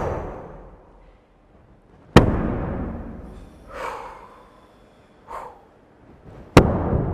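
Large rawhide frame drum (shamanic drum) struck with a beater in slow, widely spaced single strokes: one about two seconds in and another near the end, each ringing out and fading over a couple of seconds.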